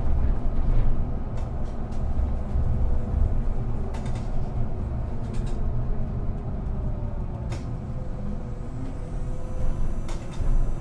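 Inside a moving city bus: a steady low rumble from the running gear and road, with scattered rattles and clicks from the body and fittings. A faint whine dips and rises a little in pitch.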